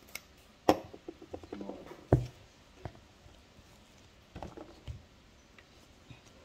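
Kitchen items being handled on a counter: a sharp knock under a second in, a run of small clicks, and a dull thud just after two seconds, then a few softer knocks.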